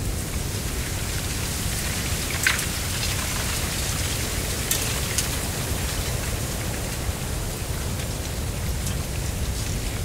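Mistral wind blowing through a stand of giant reed (Canne de Provence, Arundo donax): the dry canes and leaves rustle and fizz steadily over a low wind rumble. A few sharp ticks stand out, the loudest about two and a half seconds in.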